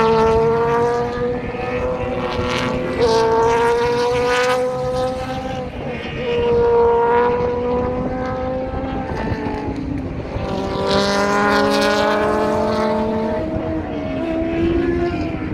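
Race car engines accelerating hard along the straight, the pitch climbing steadily and dropping sharply at each upshift about every three seconds, with a second run of engine sound near the end.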